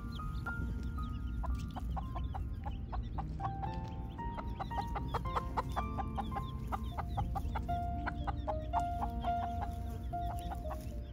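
Hen clucking and chicks peeping over background music.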